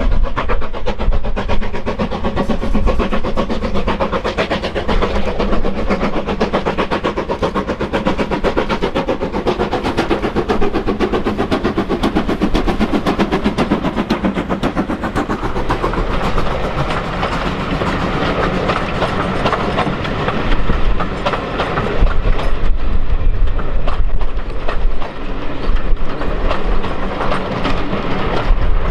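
Preserved steam locomotive working a passenger train: rapid, continuous beats and the clatter of the coaches on the rails over a low rumble.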